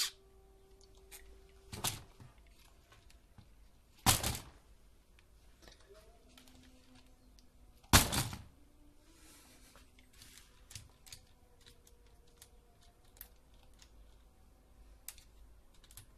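Plastic Lego Technic buggy handled and set down on a wooden tabletop: a few short clatters and knocks, the loudest a sharp knock about eight seconds in.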